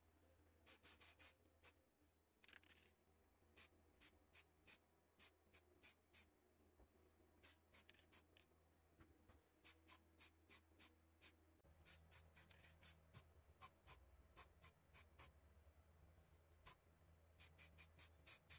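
Near silence: a low steady hum with faint, sharp clicks coming irregularly, several a second at times.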